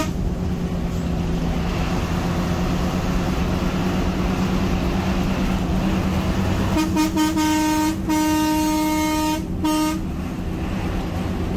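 Coach engine and road noise running steadily from inside the cab, with a horn sounding about seven seconds in: a short toot, then a longer blast that stops shortly before ten seconds.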